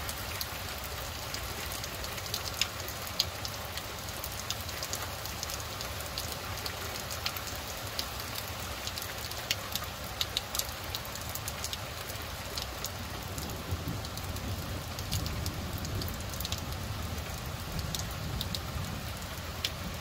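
Steady rain falling at night, a constant hiss with many sharp drip ticks of drops striking near the microphone. A low rumble underneath grows louder in the last few seconds.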